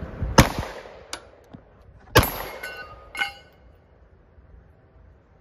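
Two 9mm pistol shots from a Glock 48, about a second and a half apart, with fainter metallic clinks and a short ringing between and after them.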